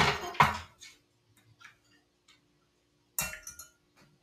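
Kitchen utensils knocking against a pot and the counter: two sharp knocks at the start, a few faint ticks, then a quick run of clinks about three seconds in.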